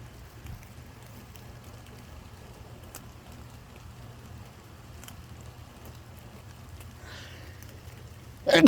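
Light rain falling, with a few scattered drop ticks over a steady low background noise. Near the end a loud sneeze starts.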